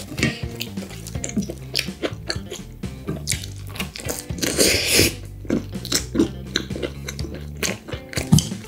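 Close-miked eating of tomato-sauced spaghetti and eggs: chewing and wet mouth sounds with frequent sharp clicks of chopsticks on a plate, and a longer wet noise about four and a half seconds in. Background music runs underneath.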